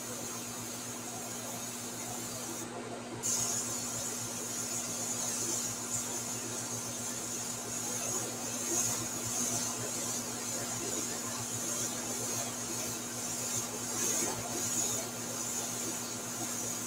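Airbrush hissing as the artist sprays, briefly cut off about three seconds in and then back louder, swelling and easing with the trigger. A steady low hum runs underneath.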